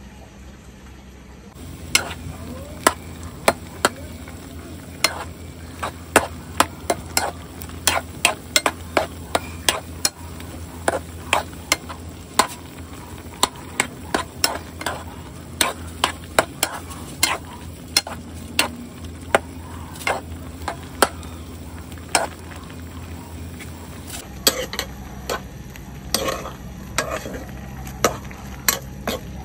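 Metal spoon stirring chicken gizzards simmering in adobo sauce in a pan, knocking and scraping against the pan in a run of sharp, irregular clinks, a few a second, over the sizzle of the cooking.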